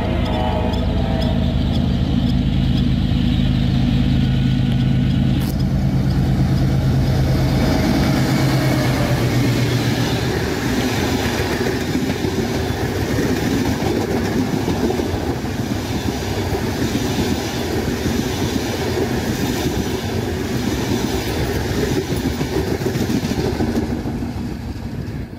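GE diesel-electric locomotive passing close with a steady engine drone for about the first ten seconds, then the passenger coaches rolling by with rumbling, clattering wheels on the rails, fading near the end.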